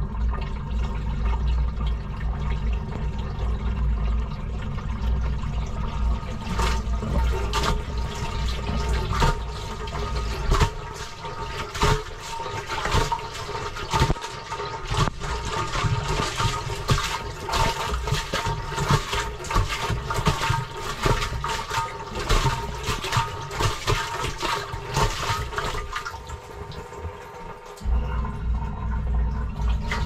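Water splashing and sloshing inside a front-loading washing machine's drum, heard from within the drum, with many small splashes. A heavy low rumble underneath drops away about ten seconds in and comes back near the end.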